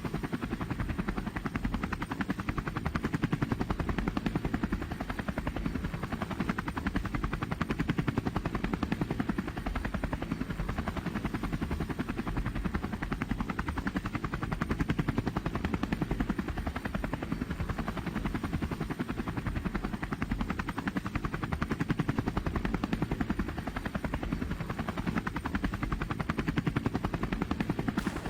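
A car engine running steadily through a loud exhaust, giving a rapid, even pulsing with no revving.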